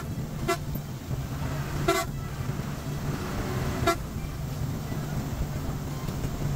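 Intercity coach's horn sounding three short toots, the middle one slightly longer, over the steady low drone of the bus engine at highway speed.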